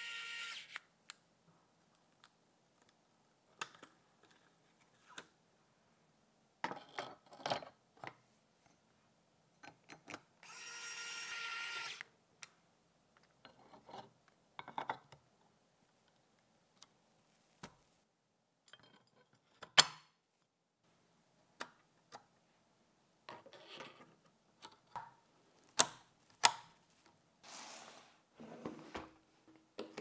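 Electric precision screwdriver whining steadily as it drives small screws, once at the start and again about ten seconds in. Between the two runs come scattered light clicks and taps of small computer parts being handled, with one sharp click about 20 seconds in.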